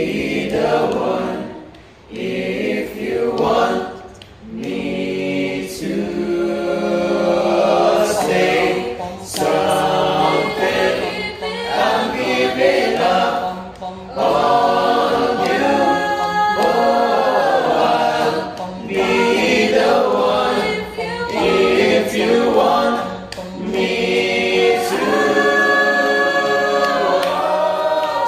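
Choir singing, with long held notes.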